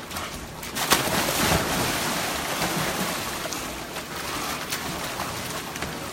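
Water splashing and sloshing in a dog swimming pool as dogs swim, with a sharp splash about a second in and steady splashing after it that slowly eases.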